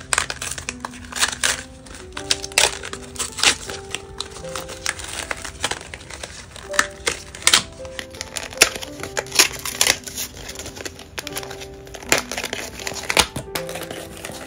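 Plastic blister packaging and its card backing crinkling and crackling as they are handled and pried open, in many sharp, irregular clicks and snaps, over soft background music.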